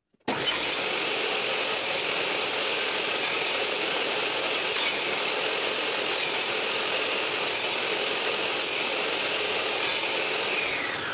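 Benchtop table saw running and crosscutting small wooden strips pushed through on a sled, with a sharper rasp about every second and a half as the blade bites into the wood. The motor's pitch drops near the end.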